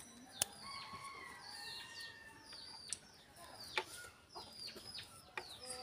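Chickens calling: a string of short, high peeps that fall sharply in pitch, with a drawn-out rooster crow starting about a second in. A few sharp clicks sound over them, the loudest about half a second in.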